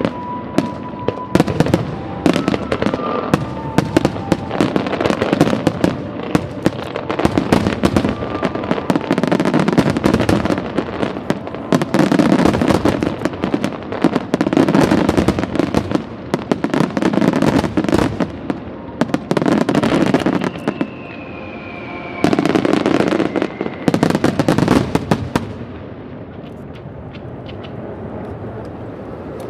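Aerial fireworks display: a dense barrage of shell bursts, bangs and crackling, with deep booms rolling in waves. It eases off a few seconds before the end.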